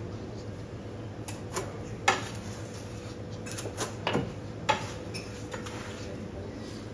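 Kitchen clatter of utensils and dishes: a handful of sharp knocks and clinks, the loudest about two seconds in, over a steady hum.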